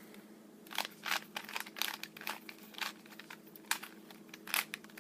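A 3x3x3 Rubik's Cube being twisted by hand: irregular plastic clicks and short scrapes as the layers are turned, about ten turns, over a faint steady hum.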